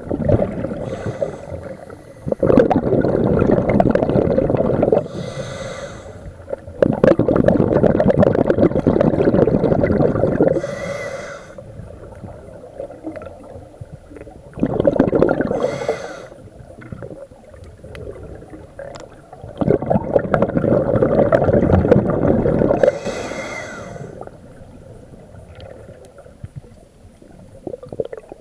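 Scuba diver's regulator breathing heard underwater: a brief hiss of inhalation through the regulator, then a few seconds of bubbling exhaust on each exhalation, repeating over several breaths.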